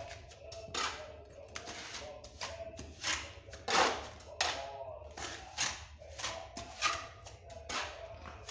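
Steel trowel scraping and slapping cement mortar against a plastered masonry wall, in short irregular strokes two or three a second, the loudest a little before the middle.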